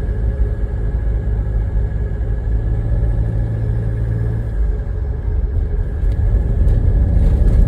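Diesel Toyota HiAce van's engine and road noise while driving, with a steady low hum that changes about halfway through into a rougher rumble and grows louder near the end.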